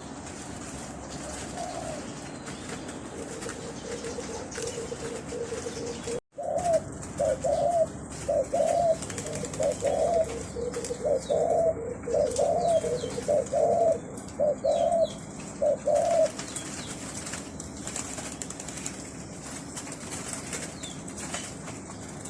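Zebra doves cooing: a few notes early, then a long run of quick, rippling coo phrases from about six to sixteen seconds in, over a steady hiss.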